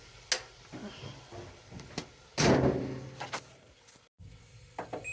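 A few sharp clicks, then a louder household door being moved or shut about two and a half seconds in, dying away over a second. A short electronic beep comes right at the end.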